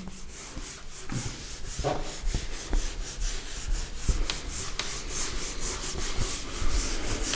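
Hand-writing strokes, with short irregular scratchy scrapes and a few light taps as a maths problem is written out.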